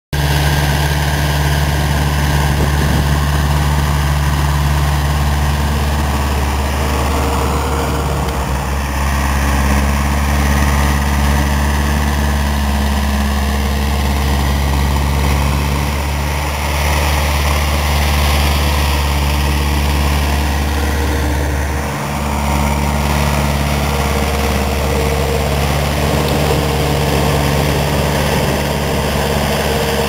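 Ursus C-355 tractor's four-cylinder diesel engine running steadily as it pulls a plough through the soil, with a brief dip in level about two-thirds of the way through.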